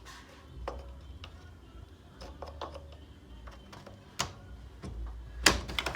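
Scattered metallic clicks and knocks as the Marantec M 4500e garage door opener is disconnected by hand, its release being worked until it comes loose. There is a louder cluster of clacks near the end.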